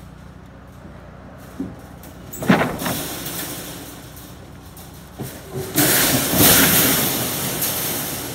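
Steel cattle panels clanging and rattling as they are shoved off the back of a pickup bed: one sharp clang about two and a half seconds in, then a few knocks and a long loud scraping rattle from about six seconds that slowly dies away.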